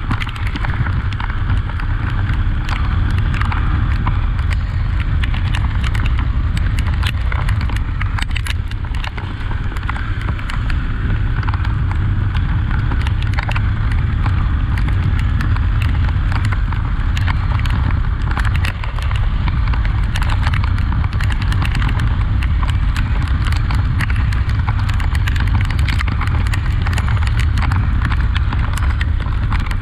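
Honda XRE 300 single-cylinder motorcycle being ridden, heard from the rider's camera: a steady loud low rumble of engine and wind, with frequent sharp knocks and taps throughout.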